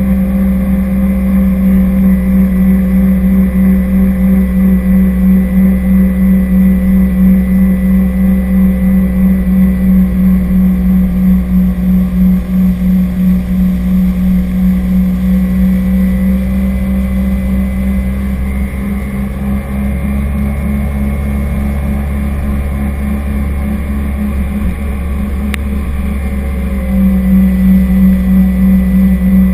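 Jet ski engine running at speed, a steady loud drone over rushing water and spray. About two-thirds of the way through the engine eases off a little, then picks up again near the end.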